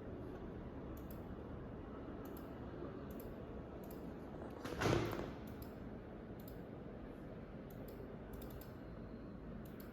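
Faint, scattered clicking at a computer while a program is loaded into simulation software, over low steady room noise. There is one louder short noise about five seconds in.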